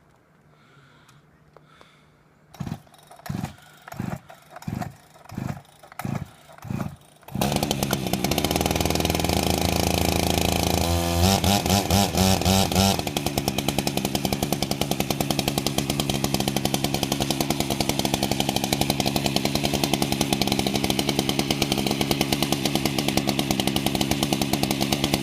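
Two-stroke gasoline chainsaw being cold-started by pull cord: about seven quick cranking pulls, then the engine catches and runs, is blipped a few times on the throttle, and settles into a steady run.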